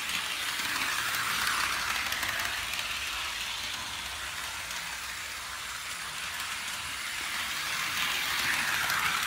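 A Tyco HO-scale GP-20 locomotive's three-pole Power Torque motor and gears whirring as it runs around the track, louder about a second and a half in and again near the end as it passes close. A dry brass bushing on the commutator squeaks, a sign that the motor needs lubrication and maintenance.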